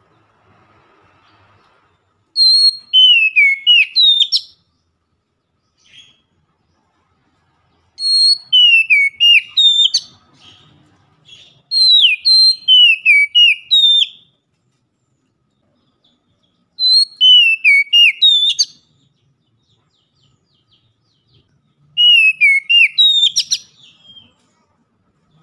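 Oriental magpie-robin singing loud, clear whistled phrases in five bouts of about two seconds each, separated by pauses. Each bout is a quick run of slurred notes that slide down and up.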